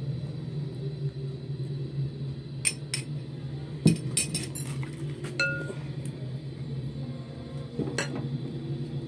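Scattered light clinks and taps of kitchenware against a frying pan, one ringing briefly about five and a half seconds in, over a steady low hum.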